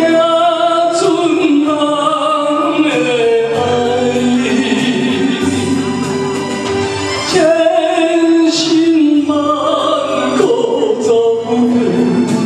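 A man singing a ballad into a microphone over a karaoke backing track, holding some notes for a second or more.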